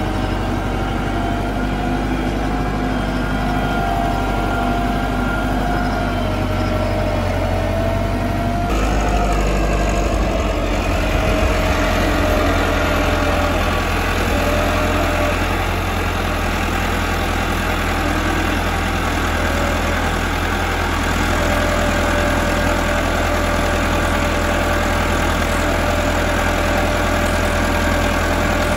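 Massey Ferguson 385 tractor's four-cylinder diesel engine running steadily under load while it pulls a soil implement through tilled ground. The engine sound changes abruptly about nine seconds in.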